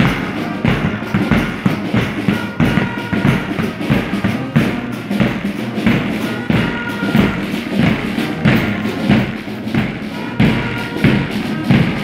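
Marching band's bass drums and cymbals beating a steady march rhythm.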